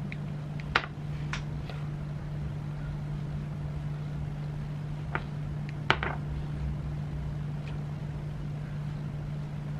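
A steady low hum, with a few faint clicks and taps.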